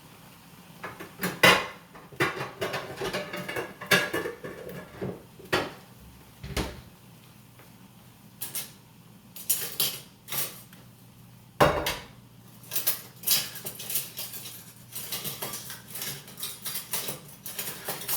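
Metal cookware and utensils clinking and knocking on a stovetop: an irregular series of clatters, with two sharper knocks a little over a second in and just before twelve seconds in.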